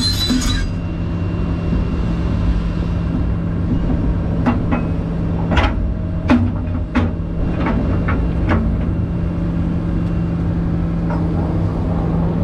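Hydraulic excavator's diesel engine running steadily, heard from inside the cab, with a handful of sharp knocks and clanks in the middle stretch as the bucket works rocky dirt.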